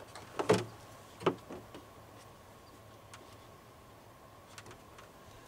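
Two short sharp clicks about half a second apart near the start, then a few faint ticks: a marker and hands working against the underside of a truck hood. A faint steady hum runs underneath.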